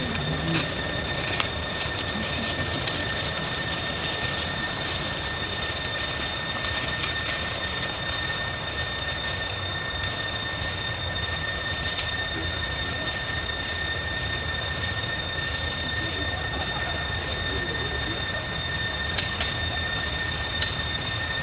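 Steady insect drone in the forest: a thin, unbroken high whine over a hiss, with a few sharp clicks near the end.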